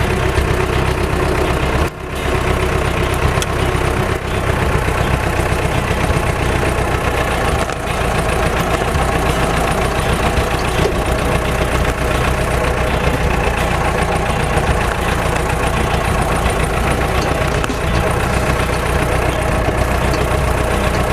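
Diesel engine of a Balkancar DV-1792 micro-loader running steadily as the machine is driven and turned around, with a brief dip in the sound about two seconds in.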